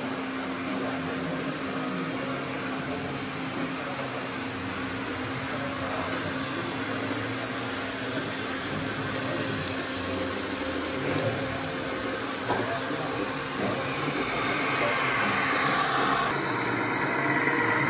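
Small electric motors and drives of radio-controlled model trucks and construction machines whirring steadily, with a higher whine building near the end.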